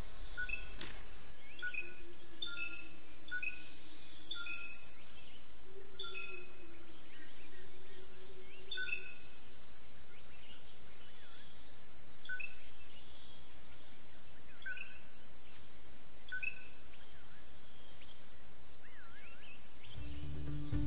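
Steady, high-pitched chorus of insects, with a bird repeating short call notes every second or so.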